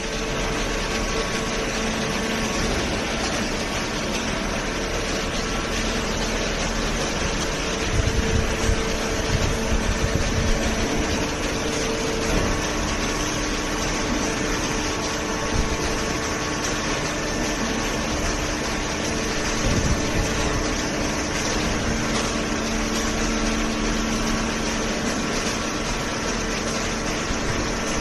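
Automatic horizontal cardboard baler line running: a steady machine hum from its hydraulic pump and feed conveyor, with a few irregular low thumps.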